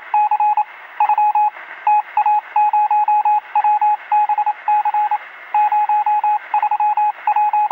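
Morse code: a single mid-pitched tone keyed on and off in quick dots and dashes, over steady hiss, with the thin, narrow sound of radio receiver audio.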